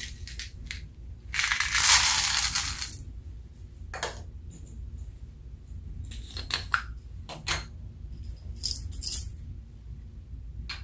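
Small pearl beads poured into a glass baking dish, a dense rattling clatter lasting about a second and a half. Then a few scattered clicks as more bits are dropped onto the glass.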